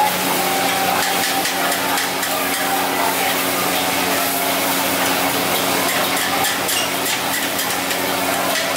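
Yellow noodles sizzling and frying in a hot wok as they are stir-fried and tossed with a metal ladle and spatula, with scattered clicks and scrapes of the utensils against the wok. A steady low hum runs underneath.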